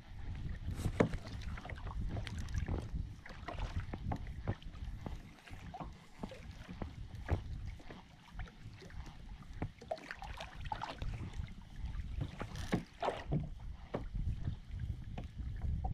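Small knocks and water splashes on a fishing kayak, scattered throughout, over a low rumble of wind on the microphone.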